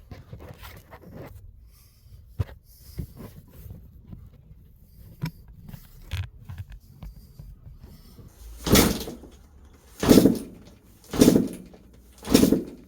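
Kick-starting a 2002 Suzuki RM250 two-stroke dirt bike: a few small clicks and scrapes, then four kicks about a second apart, each a short whooshing turn-over. The engine turns over but does not fire; the bike had no spark at this stage.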